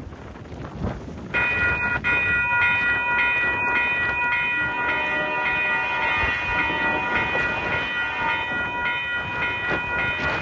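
A railroad bell ringing steadily with a train, starting about a second in: repeated strikes, about two a second, each ringing on into the next.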